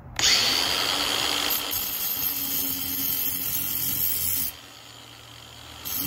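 Angle grinder with a diamond blade starting up and cutting into a soft fire brick: a steady motor whine with a gritty high hiss, which stops abruptly about four and a half seconds in.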